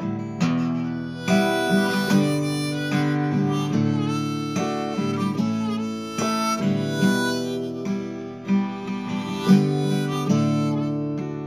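Hohner harmonica playing a folk melody, with some notes bent, over strummed chords on a Seagull acoustic guitar.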